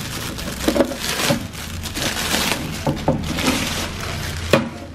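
Clear plastic film crinkling and crackling as it is peeled and pulled off a black plastic cable-storage box. A sharp click comes near the end as the box's lid is pried open.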